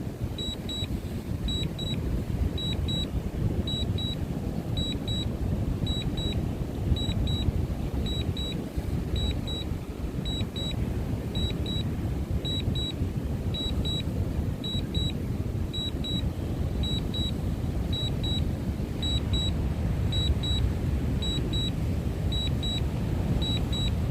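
Wind buffeting the microphone in a low, uneven rumble, with a high double beep repeating about once a second from the drone's remote controller.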